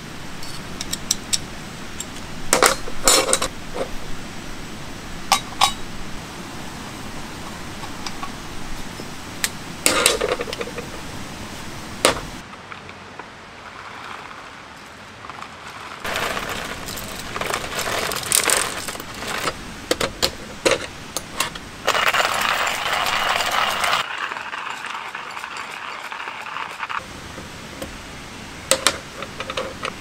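Camp coffee gear being handled on a metal camp table: sharp clinks and clacks from a hand coffee grinder's parts, a drip-bag holder and a metal mug. In the second half comes a denser stretch of rustling and scraping.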